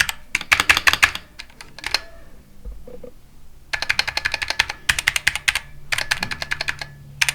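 Typing on a Tofu 65 mechanical keyboard with Zealios v2 67g tactile switches, the keys clacking in quick runs. There is a pause of about a second and a half near the middle before the typing picks up again.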